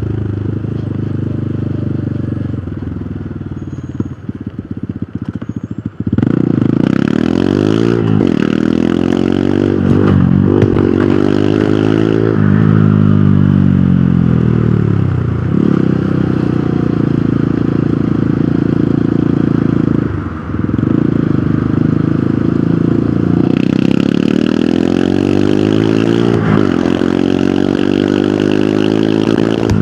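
Hero Hunk motorcycle's single-cylinder engine on the move. The engine runs slower and fades for the first few seconds, then pulls hard: its pitch climbs and drops back at each upshift, several gear changes in a row, with a brief throttle lift about two-thirds of the way through.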